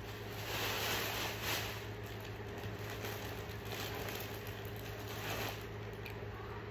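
Faint rustling of clothing being handled and shown, in soft swells, over a steady low hum.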